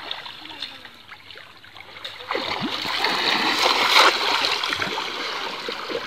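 Water splashing and churning as a cast net is thrown and hauled through a river by a wading fisherman, starting about two seconds in, loudest around four seconds and then easing off.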